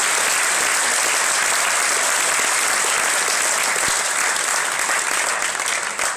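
Audience applauding steadily, the clapping starting to thin out into separate claps near the end.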